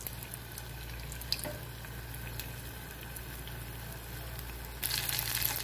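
Neiyyappam batter deep-frying in a pot of hot oil: a steady low sizzle with a few faint pops, turning louder and brighter just under a second before the end.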